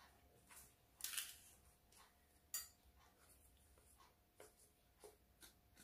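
Near silence with a handful of faint, short clicks and scrapes: a steel spoon knocking and scraping inside a small plastic spice container while scooping out powder. A faint steady hum sits underneath.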